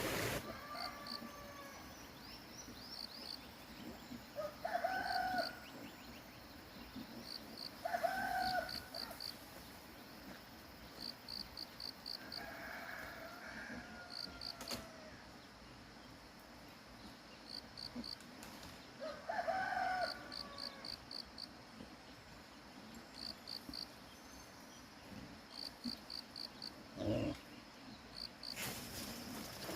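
Chickens calling several times, one call about a second long each, with rooster-like crows among them. Over them run short, rapid runs of very high chirps.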